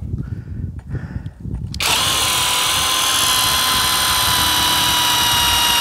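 Cordless drill running at a steady speed, drilling a pilot hole through the outrigger mount's tube. It starts about two seconds in, after a few small handling clicks, and keeps a steady pitch.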